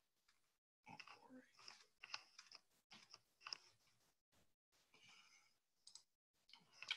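Near silence over a webcam microphone, broken by faint scattered clicks and rustles that cut in and out, with dead quiet between them.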